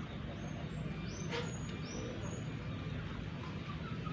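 Short high bird chirps over a steady low hum, with one sharp click about a second and a half in.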